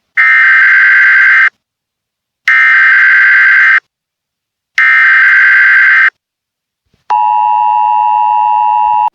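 Emergency Alert System SAME header: three loud, buzzy data-tone bursts of about a second and a quarter each, a second apart. About seven seconds in, the steady two-tone EAS attention signal begins.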